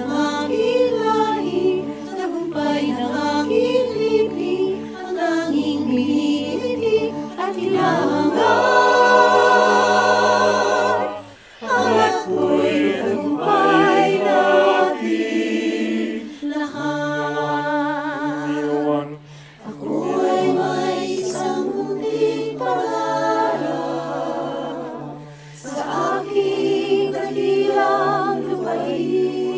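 Mixed-voice SATB choir singing a cappella in Filipino: a virtual choir of separately recorded voices mixed together. It sings held chords in phrases, with short breaks about 11, 19 and 25 seconds in.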